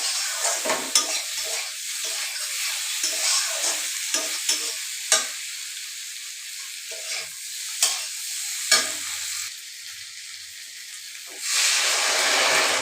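Potatoes, raw banana and hyacinth beans sizzling in a pan as a spoon stirs them, with sharp clinks of the spoon against the pan. Near the end a sudden louder sizzling rush as water is poured into the hot pan to start the curry's broth.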